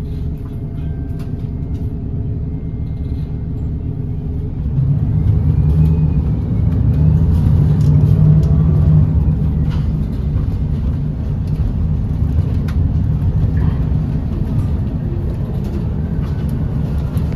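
Low, steady rumble of a motor vehicle in motion, swelling louder for a few seconds in the middle.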